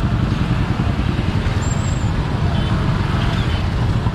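Steady motorcycle riding noise: wind rushing over the rider's microphone mixed with the motorcycle's engine and tyre noise at road speed.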